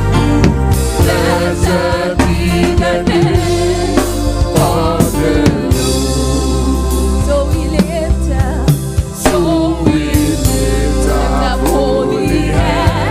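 Gospel choir singing a worship song over a band, with drum kit hits and a steady bass line.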